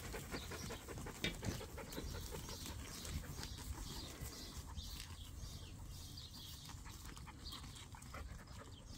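A sheepdog panting, in short repeated breaths.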